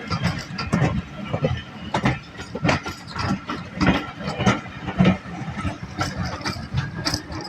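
Railway train in motion: a low rumble with irregular clattering and knocking.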